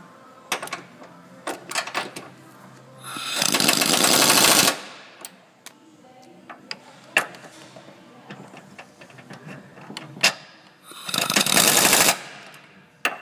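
Impact wrench driving down the Ford Focus engine mount's bolts in two hammering bursts of about a second and a half each, one about three seconds in and one near the end. Short sharp clicks come between the bursts.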